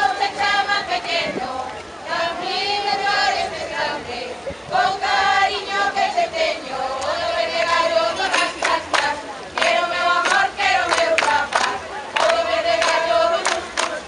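A group of women singing a Galician folk song together in a strong, high melody. From about halfway, sharp rhythmic strikes join in, beating time with the song.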